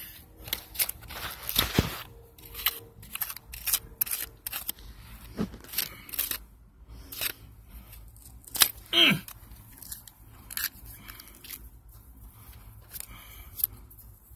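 A small metal digging tool scraping and picking through crumbly, gritty dirt around a milk glass jar: a rapid, uneven run of short scrapes and crunches. There are two brief squeaky scrapes, about two seconds in and again about nine seconds in.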